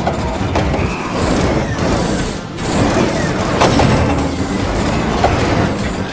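Cartoon sound effects of a heavy truck's engine and machinery working steadily, with a hiss like an air brake, under background music.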